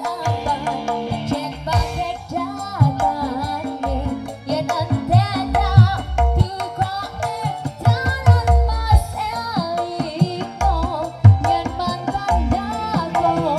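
Loud music with a wavering melodic lead over drums and heavy, repeated bass hits, played through an SPL Audio Verde line-array PA with Ventura 18-inch subwoofers.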